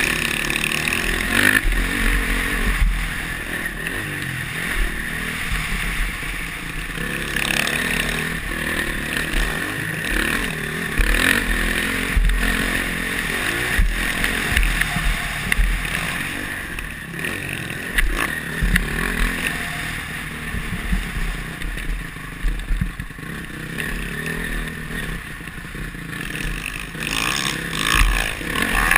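Honda CRF450R's single-cylinder four-stroke engine revving up and down over and over as the motocross bike is ridden hard on a dirt track, heard from a helmet camera with wind buffeting the microphone.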